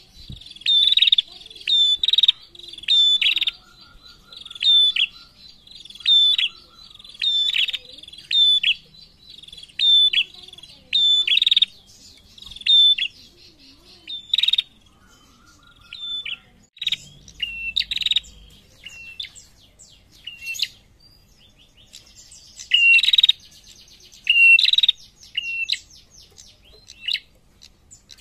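A caged female prenjak, a small rufous-headed songbird, calls with loud, sharp, repeated chirps, about one a second at first. The calls thin out midway and come in a quicker run of notes near the end. A fainter low trill sounds twice early on.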